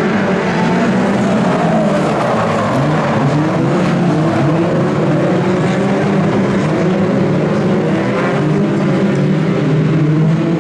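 A pack of BriSCA F2 stock cars racing on the oval, several engines running hard at once, their pitches rising and falling as they accelerate and lift off, just after the green-flag restart.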